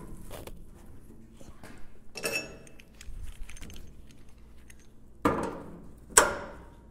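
Sheet-steel floor pan and locking pliers clanking against a Triumph Spitfire's steel body shell as the panel is clamped in place for a mock-up fit. A ringing metallic rattle comes about two seconds in, then two sharp clanks about a second apart near the end, the second one the loudest.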